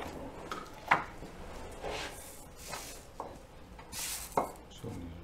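Sheets of paper sliding and rustling on a wooden table as they are moved aside, with two sharp knocks of things being set down, the loudest about a second in and another near the end.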